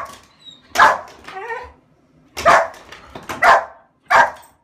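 Small white fluffy dog barking repeatedly, about six short sharp barks at uneven spacing, with one thinner bark that slides in pitch between them. It is alert barking at a person outside the window.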